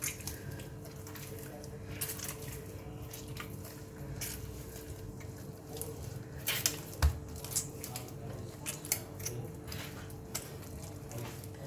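Hands kneading soft, oiled maida parotta dough on a stone slab: soft squishing and scattered light taps and clicks, a few sharper ones about halfway through, over a steady low hum.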